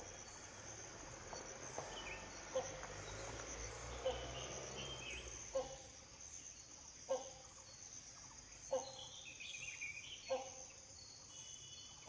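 Great hornbill calling: a short, deep, barking note repeated about every second and a half, six times, over a steady high-pitched insect drone.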